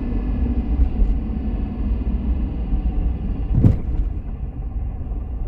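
Jeep Grand Cherokee WJ braking to a stop, heard from inside the cabin: steady road rumble with a faint rubbing that fades as the vehicle slows and rubs to a stop. A single thump comes about two-thirds of the way through.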